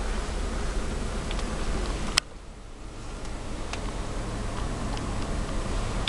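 Handheld camera handling noise inside a car: a steady low rumble and hiss with scattered light ticks. A sharp click comes about two seconds in, and the background is suddenly quieter after it.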